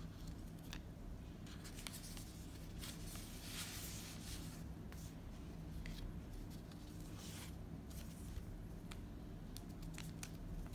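Hands handling paper packaging and small alcohol prep pad sachets: rustling in two longer stretches, about three seconds in and again around seven seconds, with scattered light clicks and taps.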